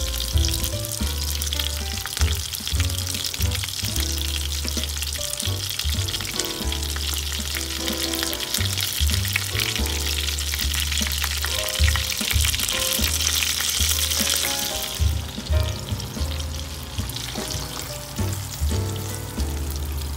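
Hamburger patties sizzling and crackling in hot oil in a nonstick frying pan, with the sizzle thinning out about fifteen seconds in. Background music with a steady bass line plays over it.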